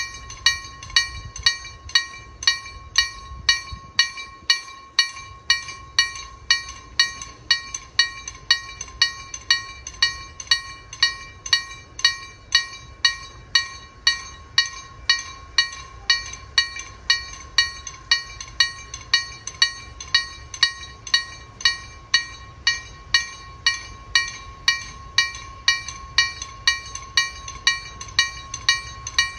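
Level-crossing warning bell (KLD-4013) ringing steadily, about one and a half clanging strikes a second, each strike ringing briefly at the same pitch: the sign that the crossing is closed for an approaching train.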